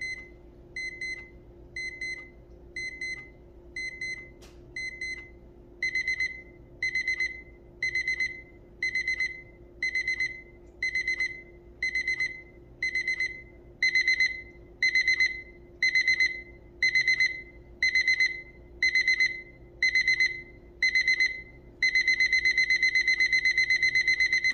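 Sharp SPC844A quartz analog alarm clock's alarm beeping: a high-pitched beep pulsing about once a second. It steps up in loudness twice, then turns into a continuous beep near the end, which is the clock's ascending alarm volume.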